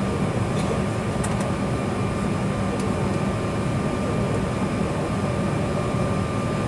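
Steady cabin noise inside an Embraer E190 during the taxi: the idling GE CF34 turbofans and the air-conditioning rush, with a constant high tone running through it.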